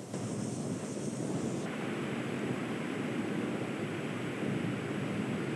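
Constant low roar of Kīlauea's erupting vent, a steady rumbling noise.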